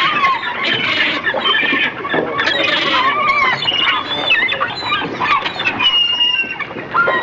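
A flock of birds squawking, many overlapping high calls.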